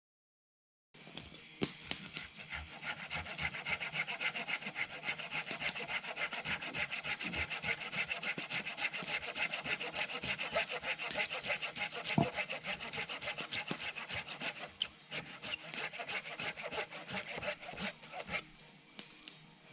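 Hand saw cutting through a log, steady back-and-forth strokes starting about a second in and stopping shortly before the end.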